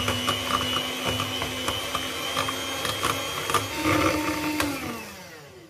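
Electric hand mixer running at a steady whine, its wire beaters whipping partly frozen custard ice cream in a glass bowl to make it soft, with light clicks throughout. About five seconds in it is switched off and the motor winds down, falling in pitch.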